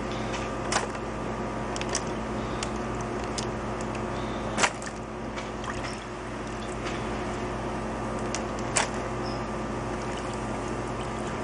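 Scattered sharp clicks and knocks, with a few louder knocks about a second, four and a half and nine seconds in, and some faint liquid sounds, over a steady hum. These are parts and containers being handled around a rust-treatment soak.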